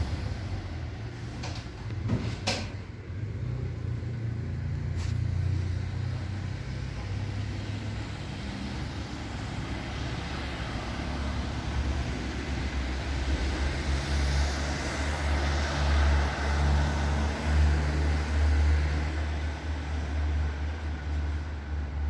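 Road traffic passing outside: a heavy vehicle's engine rumbles low and builds to its loudest about two-thirds of the way through, with tyre and engine hiss. A few short sharp clicks sound in the first five seconds.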